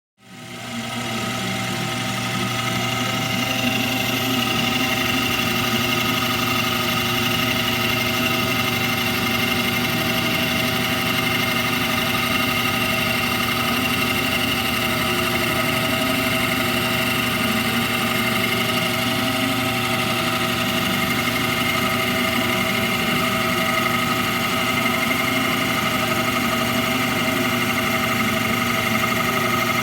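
Metal lathe running steadily, with a constant hum and several steady whining tones. It starts from silence and comes up to full level within about the first second and a half.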